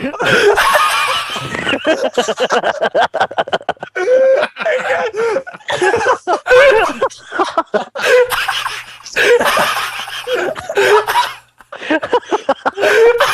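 People laughing hard with high-pitched, wheezing laughs, broken by a quick run of short breathy gasps about two seconds in.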